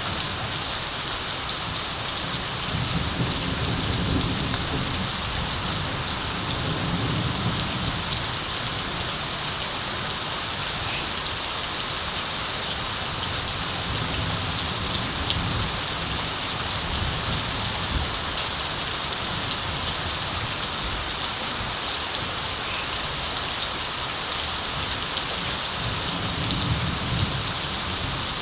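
Steady rain falling, with soft low rumbles of distant thunder a few seconds in, around the middle and again near the end.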